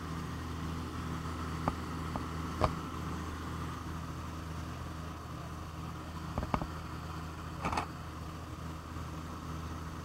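Steady drone of the Aero Commander L-26B's twin piston engines in cruise, heard from inside the cockpit, with a few short sharp clicks scattered through it.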